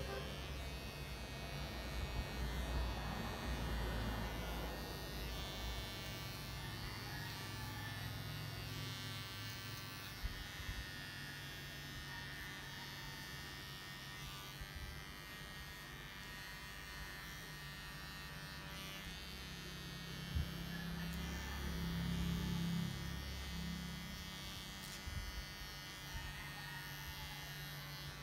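Electric grooming clippers running with a steady buzz as they trim a dog's coat, with a few small knocks along the way.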